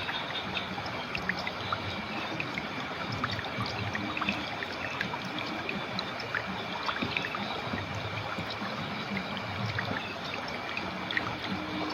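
River water flowing and trickling steadily, with many small splashes and drips popping out of the rush.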